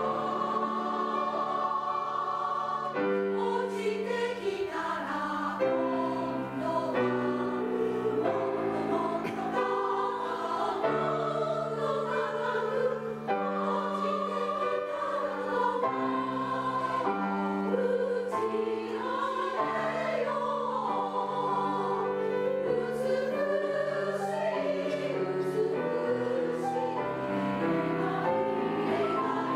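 Women's three-part choir singing with grand piano accompaniment.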